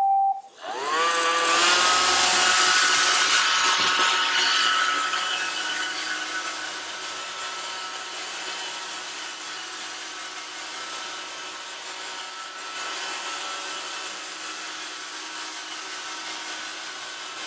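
An iRobot Roomba 565 robot vacuum starting a cleaning run. The last note of its start-up chime sounds, then the vacuum fan and newly replaced brush motor spin up with a rising whine that settles into a steady whirring hum with brushing noise. The sound grows quieter over a few seconds as the robot drives away.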